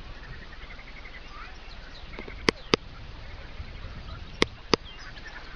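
Outdoor rural ambience with faint bird chirps, broken by two pairs of sharp clicks or knocks about two seconds apart.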